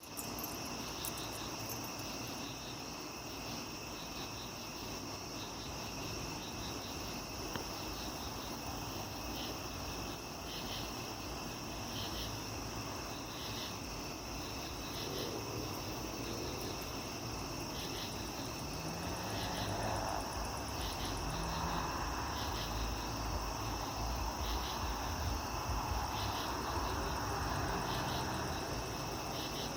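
Crickets chirping steadily, with pulsed chirps repeating about once a second over a continuous high trill. About two-thirds of the way through, a low rumble swells in and holds to near the end.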